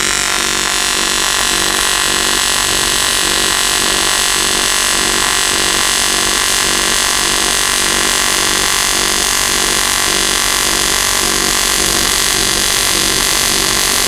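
AC TIG welding arc on aluminum from an AHP AlphaTIG 200 welder, held as a steady buzz while a bead is run. The machine is on low-speed pulse at five pulses a second, with the pulse base at about half the welding amperage.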